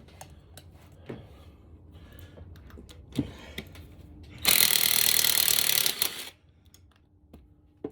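A few clicks and knocks of hand tools on engine parts, then a power tool runs in one loud burst of about two seconds.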